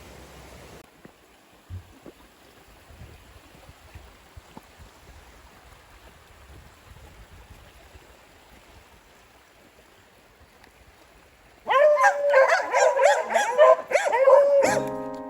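French bulldog barking and whining in a sudden loud burst lasting about three seconds near the end, after a long stretch of faint steady hiss.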